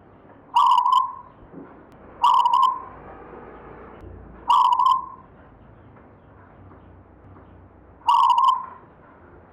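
Zebra dove (perkutut) cooing: four short, stuttering coo phrases, the first three about two seconds apart and the last after a longer pause.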